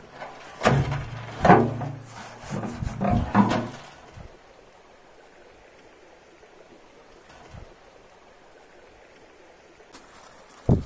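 Gloved hands handling and rubbing an engraved brass container on dry, twiggy ground: a few seconds of irregular rustling, scraping and knocking, then a faint steady hiss, and one sharp knock near the end.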